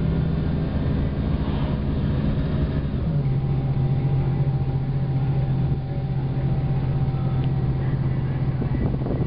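Car engine and road noise heard from inside the cabin, a steady low hum; the engine note drops slightly about three seconds in and then holds steady.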